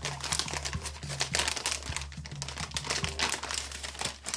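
Clear plastic heater sleeve crinkling and rustling in the hands as a foil-lidded meal tray is pushed into it between the two heating sachets of a flameless ration heater.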